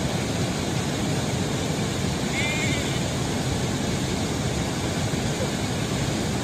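A sheep bleats once, briefly and with a wavering pitch, about two and a half seconds in, over a steady rumbling noise.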